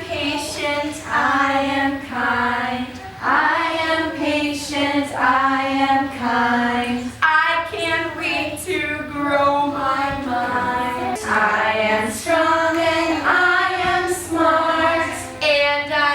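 Young children and a woman singing a song together in a group.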